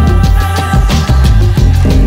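Loud background music with a steady beat and heavy bass.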